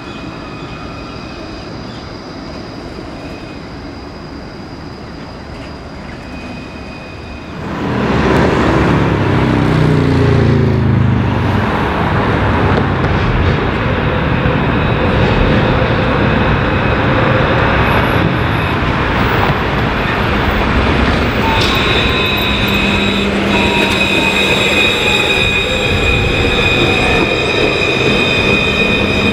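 Alstom Citadis C1 class low-floor trams running on street track: a quieter stretch with thin high tones, then about eight seconds in a much louder pass with a falling whine. In the latter part the wheels squeal with steady high tones over the rolling noise.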